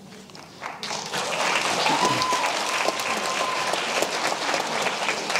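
Audience applauding, the clapping swelling in about a second in and then holding steady.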